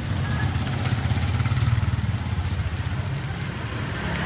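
A motor scooter's engine idling steadily.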